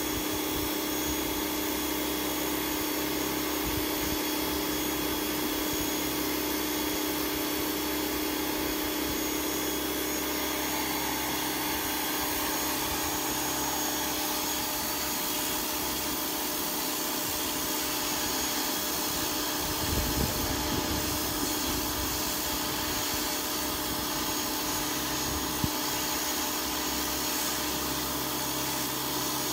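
Pressure washer running steadily while its jet sprays the wooden slats of a bench: a constant motor hum with a strong low tone under the wide hiss of the water spray.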